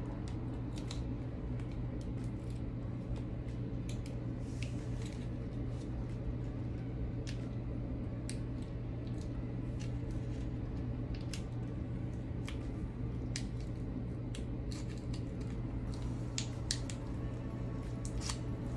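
Artificial flower stems being handled and snipped with cutters: irregular sharp clicks and snips with a few short rustles, over a steady low hum.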